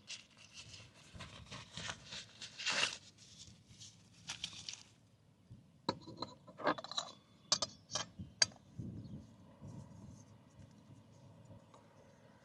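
Camping gear being handled: rustling and scraping, then several sharp clicks about six to eight seconds in.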